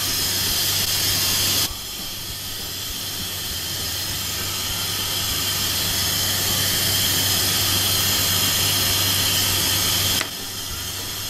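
Butter and patties sizzling in the hot wells of an electric pie maker, a steady hiss. The hiss drops abruptly in level about two seconds in and again near the end.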